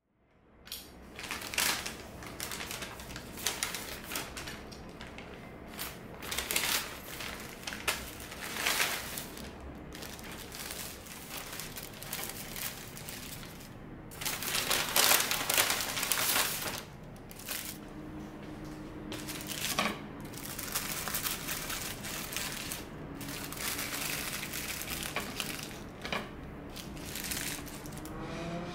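Parchment paper crinkling and rustling as donuts are handled and unwrapped on a plate. It comes in irregular bursts and is loudest about halfway through.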